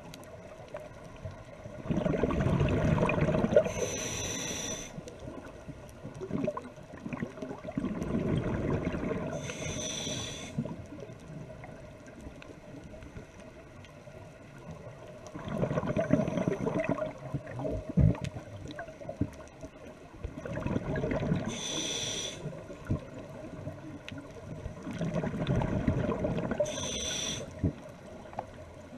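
Scuba diver breathing through a regulator underwater: short hissing inhales through the demand valve with a thin whistle, and low bubbling bursts of exhaled air. The cycle repeats about every six seconds.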